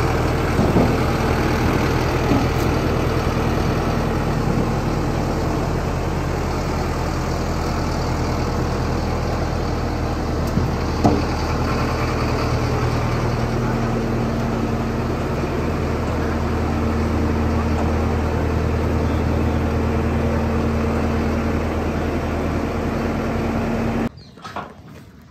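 Sonalika Tiger tractor's diesel engine running steadily as the tractor is driven up onto a truck bed, with a few brief knocks, until the sound stops abruptly near the end.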